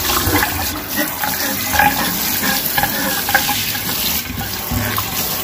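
Kitchen faucet spray running into a stainless steel sink, with a scouring pad scrubbing and scraping around the metal drain cap.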